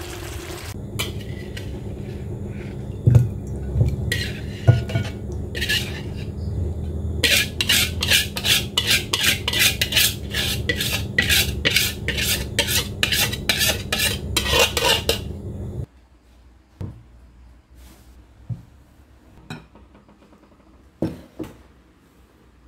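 Metal spatula scraping and knocking against a wok as cooked soy-sauce chicken is scooped out, then a fast run of about three scrapes a second as the sauce is scraped from the tilted wok into a bowl. A steady low hum under it cuts off suddenly about two-thirds of the way through, leaving a few scattered light knocks.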